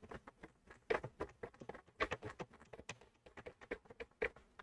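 A hand screwdriver driving a screw into the plastic housing of a Sentro 48 knitting machine: a quick, irregular run of small clicks and ticks.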